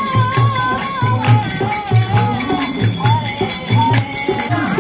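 Devotional kirtan music: a singing voice carrying a wavering melody over a repeating low drum beat and jingling hand percussion.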